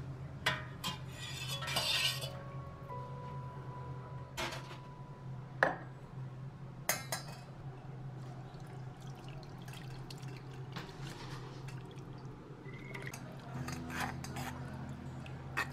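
Stainless-steel pan and mesh sieve handled in the kitchen: sharp metal clinks and knocks, mostly in the first half, with gravy pouring and dripping through the sieve. Near the end a metal spoon scrapes and presses the strained onions against the mesh. A low steady hum runs underneath.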